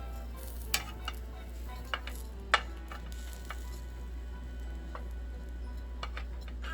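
Food sizzling as it fries in a pan, with a few sharp clicks of a utensil against the pan, the loudest about two and a half seconds in.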